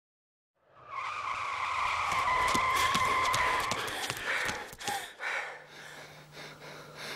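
A loud, sustained high screech over a noisy rush starts just under a second in and lasts about three seconds. It gives way to a clatter of sharp knocks, after which a low steady hum remains.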